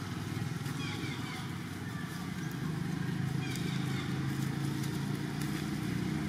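A steady low engine hum, a little stronger after about two and a half seconds, with a few short high chirps over it.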